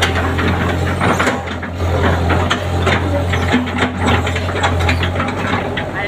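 Excavator engine running steadily under load while the toothed bucket scrapes and knocks through wet soil, with frequent short clanks and scrapes.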